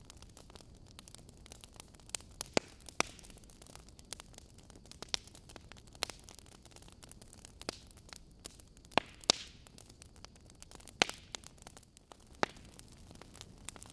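Wood fire burning in a fireplace: logs crackling with sharp irregular pops, several of them loud, over a soft steady hiss.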